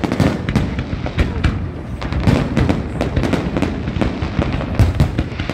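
Aerial fireworks display: a dense, irregular run of bangs and crackles from shells bursting overhead.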